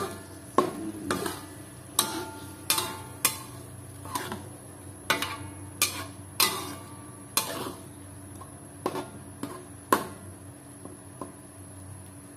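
Metal spatula knocking and scraping against a wok while chilli paste is stirred in the sauté stage, with irregular clinks about once or twice a second. The strokes stop about ten seconds in.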